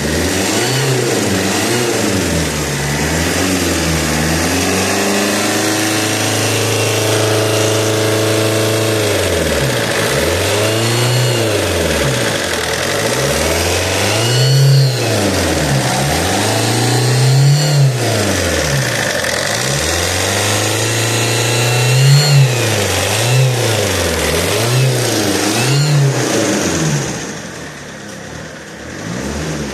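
Alfa Romeo GT 1.9 JTD four-cylinder turbodiesel being blipped repeatedly, its revs rising and falling again and again with one longer hold at higher revs, then dropping back near the end. A faint high squeal rises and falls with the revs: a noise from near the common-rail pump that appeared after a turbo replacement.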